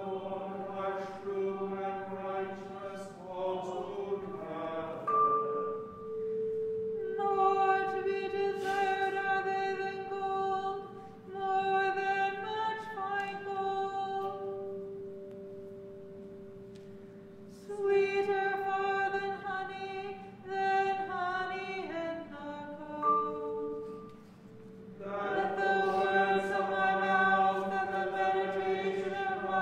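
Congregation chanting a psalm to a simple chant tone, with organ sustaining the notes. The verses come in phrases on long reciting notes, with short breath-pauses between them.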